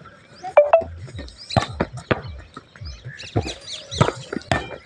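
A volleyball being struck again and again by players' hands and forearms in a passing drill: a run of sharp slaps about half a second to a second apart. Short high, squeaky sounds come in between them in the second half.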